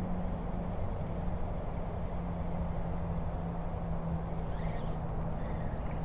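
Steady outdoor background at a creek: a low even rush with a low steady hum and a thin, high steady tone running over it.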